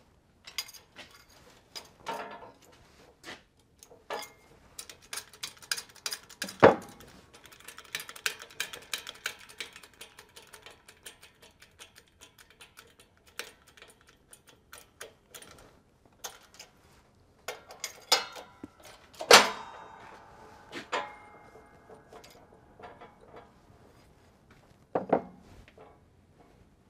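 Metal clinks and knocks of a steel socket, extension and truck wheel hub being shifted and lined up on a shop press, with a run of quick light clicks several seconds in and one loud clank about two-thirds of the way through.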